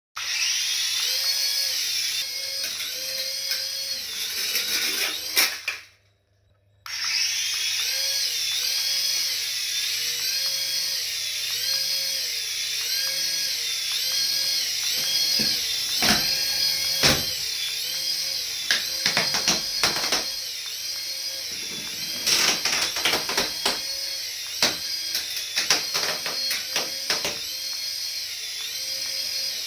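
High electronic whine from a battery-powered toy, its pitch warbling up and down in an even repeating pattern. It cuts out for about a second near the start and then starts again. Clicks and knocks come in the second half.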